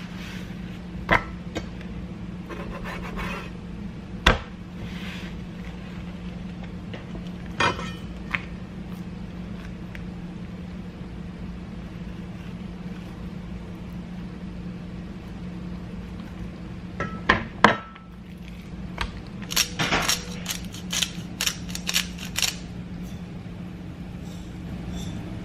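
Kitchen clatter: scattered clinks and knocks of utensils against dishes and pans over a steady low hum, with a quick run of clinks near the end.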